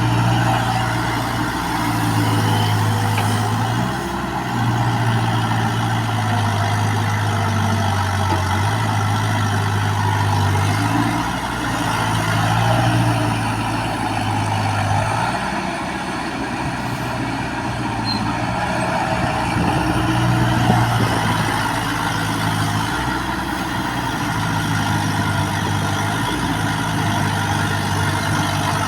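Backhoe's diesel engine running under working load, its note dropping and rising every few seconds as the machine digs and moves soil.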